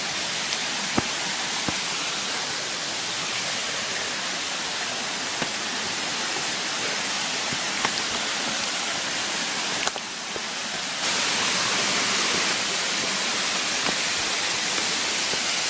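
Waterfall rushing in a steady, even roar of falling water; it dips briefly about ten seconds in, then runs louder.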